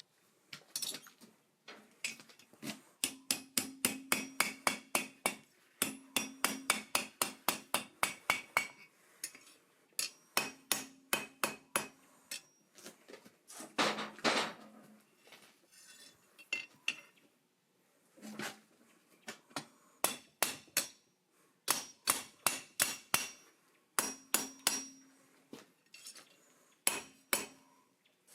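Hand hammer striking hot steel on an anvil, in runs of rapid blows, about three to four a second, broken by short pauses. Some runs carry a low ring from the anvil.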